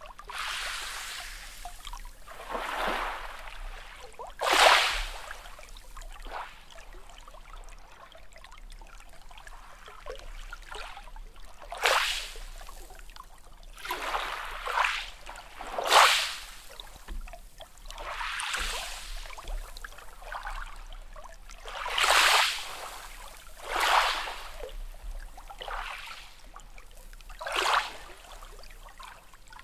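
Small sea waves lapping and splashing against the shore, one sharp splash every few seconds over a steady wash of water.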